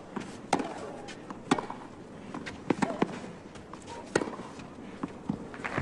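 Tennis rally: sharp racket-on-ball strikes about once a second, with fainter ticks between them.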